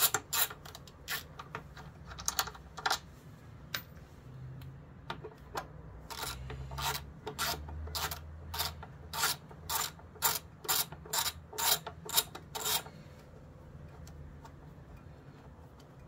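Ratchet wrench clicking in uneven runs of a few clicks a second as the two 12 mm front brake caliper mounting bolts are backed out. The clicking stops near the end.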